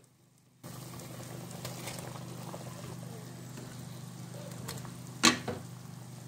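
A large pot of soup boiling, its liquid bubbling steadily over a steady low hum, starting after a brief silence. There is a sharp knock against the pot about five seconds in.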